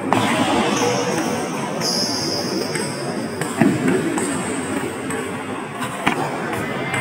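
Table tennis ball knocking off bats and table: a few sharp clicks spaced seconds apart, the loudest about three and a half seconds in, over a steady murmur of hall noise.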